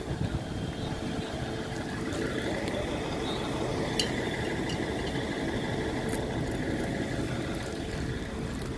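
CP diesel multiple unit 0466 running at the platform, its diesel engine giving a steady drone with a held tone.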